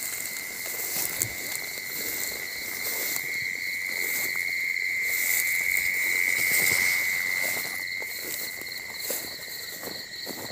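Night chorus of crickets trilling steadily at a high pitch, swelling louder in the middle, with faint rustling of footsteps through grass.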